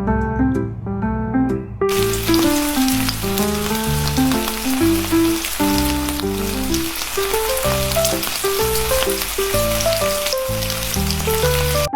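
Piano music playing a simple melody. About two seconds in, a loud crackling hiss starts over it and cuts off suddenly near the end.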